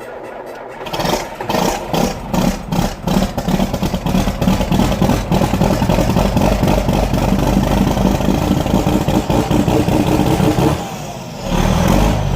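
A John Deere 4440 tractor's turbo-diesel six cold-starting on winter oil: a short spell of cranking, then the engine catches about a second in with separate firing strokes that quickly run together into loud steady running. Near the end it drops briefly and settles into a steady lower idle.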